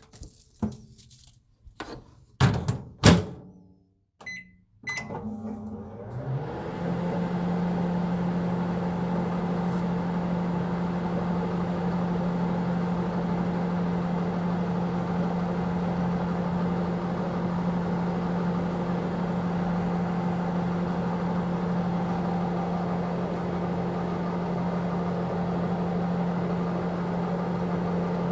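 Microwave oven: a few sharp clicks and knocks, then short keypad beeps about four seconds in, then the oven starts up and runs with a steady, even hum.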